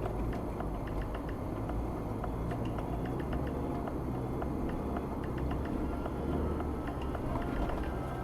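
Steady road and engine rumble from a car driving on the road, with frequent light clicks and rattles on top.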